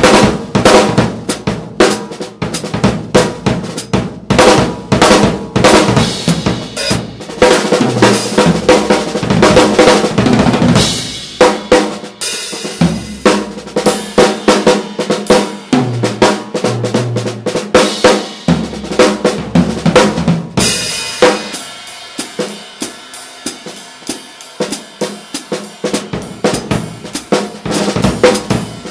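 Drum kit groove played with sticks, centred on a 14 x 6 beech and mahogany block-stave snare drum with a Remo CS reverse clear dot head, with bass drum, tom and cymbal hits. The playing turns quieter about two-thirds of the way through.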